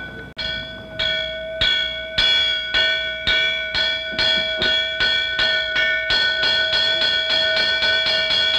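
Small bronze hand bell rung over and over, each stroke a clear ring that carries into the next. The strokes start at about two a second and speed up to about three a second.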